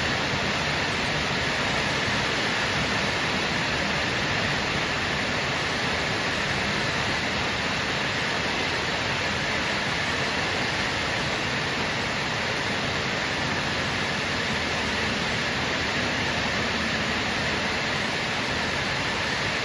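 Heavy rain pouring down steadily, an even hiss with no let-up.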